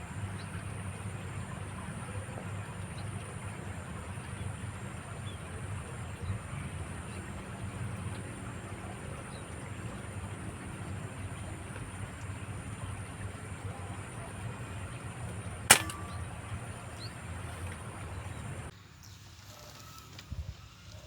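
A steady low rumble with one sharp, loud crack about three-quarters of the way through, followed by a brief ring; near the end the rumble stops abruptly and the background turns much quieter.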